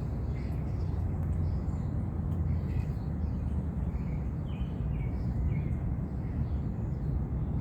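Outdoor ambience: small birds chirping now and then over a steady low rumble.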